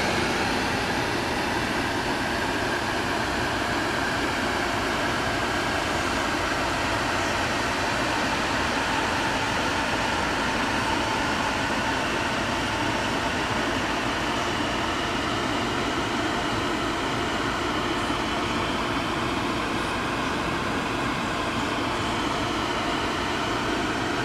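Steady rushing noise inside a parked car's cabin, from the climate-control fan blowing with the engine running.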